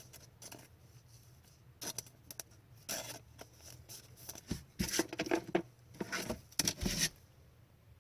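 Upper Deck hockey trading cards being handled: card stock sliding and rubbing with short papery strokes and light taps, coming in irregular bunches, busiest in the second half.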